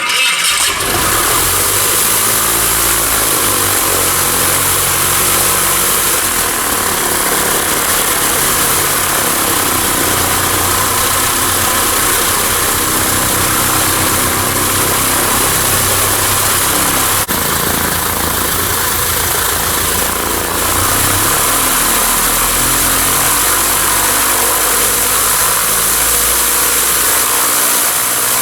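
Aircraft piston engine running with its propeller turning: a loud, steady drone that comes in abruptly at the start and holds throughout.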